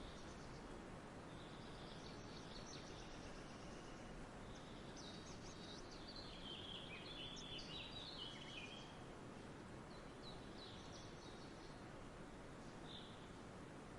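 Faint birds chirping over a steady background hiss, with the busiest run of chirps near the middle.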